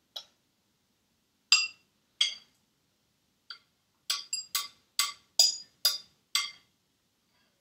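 A spoon clinking against glass as the last strawberry mousse mix is scraped from a glass mixing bowl into small glass jars: a few separate clinks, then a quicker run of about two a second from about four seconds in.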